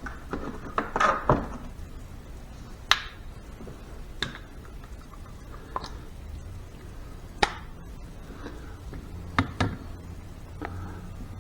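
Scattered sharp metal clinks and taps, several single knocks a second or two apart, as a socket and torque wrench are handled and fitted onto the transmission's shaft nuts.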